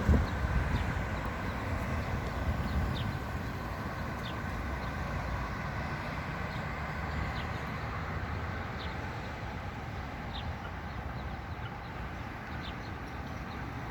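Metra F40PH diesel locomotive rumbling steadily, with a bird chirping now and then.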